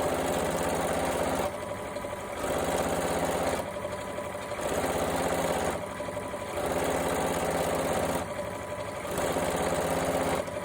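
Electric sewing machine stitching, darning over worn denim by running backwards and forwards, so the motor alternates between louder stretches of about a second and slightly quieter ones.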